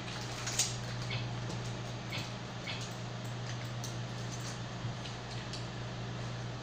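A steady low hum with a few scattered faint clicks and taps, the most distinct about half a second in.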